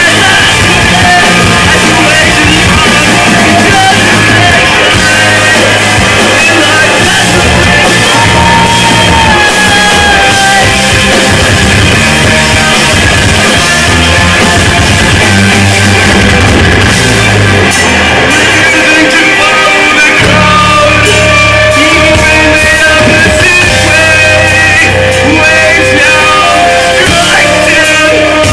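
Post-hardcore band playing live at full volume: distorted electric guitars, bass and drums, with vocals over them.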